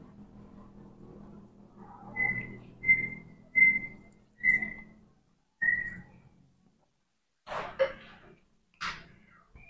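Five short whistled notes at one pitch, spaced a little under a second apart, the last slightly falling; near the end a few short sharp clicks and smacks.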